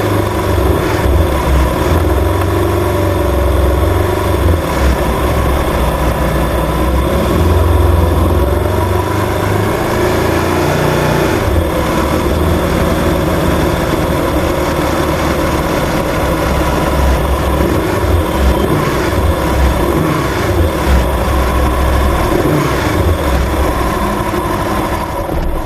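Aprilia RSV 1000 R's 60° V-twin engine running at low revs as the bike rolls at low speed, its low rumble swelling and easing.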